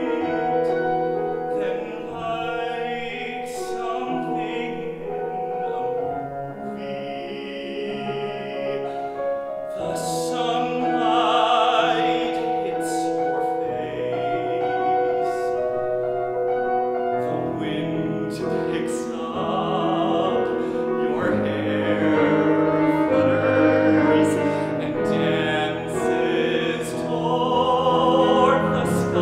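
A male voice singing a musical theatre song to piano accompaniment, holding several notes with vibrato.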